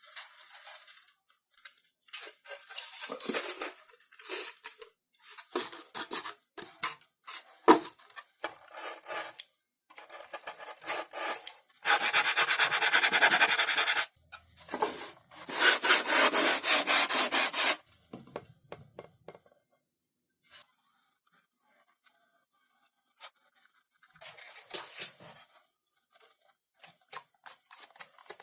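Hand tools working thin XPS foam sheet: irregular scraping and rubbing strokes, with two long, louder strokes near the middle and a single sharp knock about a third of the way in.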